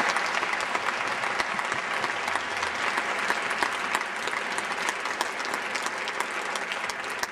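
Audience applauding: many people clapping together, a dense steady patter that eases slightly toward the end.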